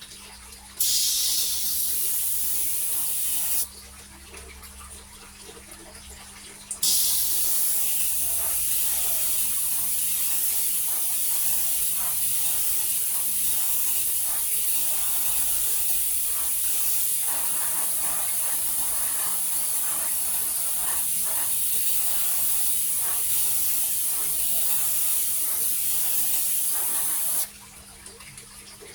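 Airbrush spraying paint, a hiss of compressed air that switches on and off sharply: a short spray of about three seconds, then a long one of about twenty seconds.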